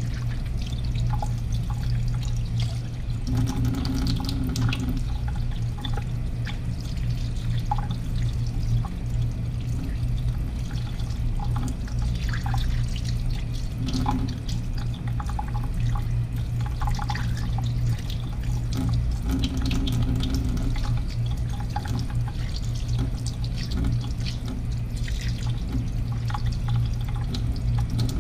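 Tap water running into a stainless steel sink and splashing over hands and fish being rinsed, with a steady low hum underneath.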